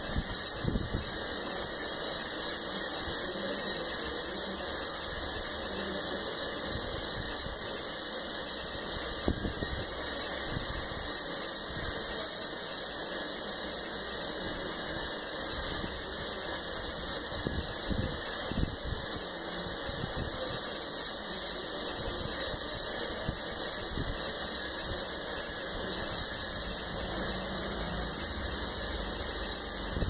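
Steady hiss that does not change, with a few soft low knocks here and there.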